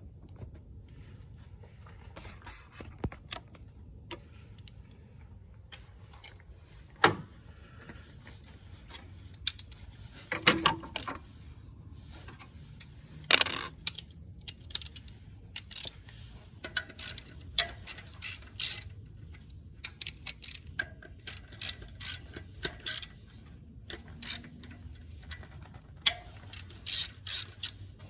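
Hand socket ratchet clicking in short runs while spark plugs are unscrewed, with a few sharper knocks of tools on metal. The clicking comes in scattered strokes at first and in quicker, busier runs in the second half.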